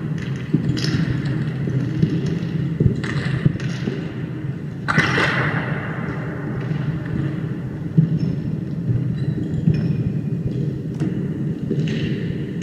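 Sampled sound-font sounds from a Raspberry Pi synthesizer running Fluidsynth, triggered from a mini MIDI keyboard: a steady low rumble with short bursts of hiss every few seconds, the strongest about five seconds in.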